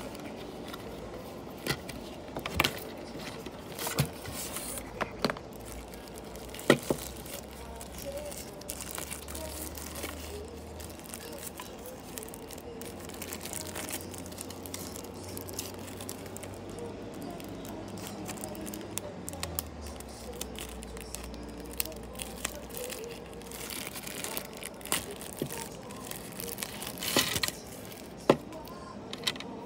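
Cardboard box flaps and a crinkly plastic wrapping bag being handled and pulled open to unwrap a small die-cast model bus, with scattered sharp clicks and taps of handling.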